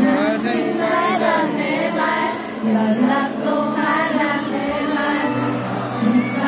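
Female vocal duo singing live into microphones over a pop backing track with a steady bass line, played through the hall's PA.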